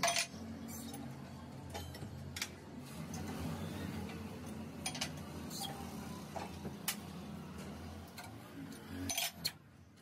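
Scattered metallic clinks and knocks as a crankshaft is handled and turned in a steel checking jig, over a steady low hum.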